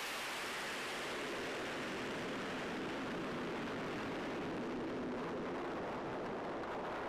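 C-130 Hercules four-engine turboprop transport's engines at takeoff power, a steady roar that slowly loses its high end as the aircraft moves away down the runway.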